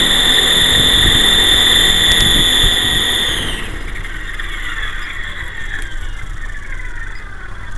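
GT Model QS8006 RC helicopter's electric motors whining at speed with rotor noise, then cutting out about three and a half seconds in; the whine drops in pitch and fades as the rotors coast down.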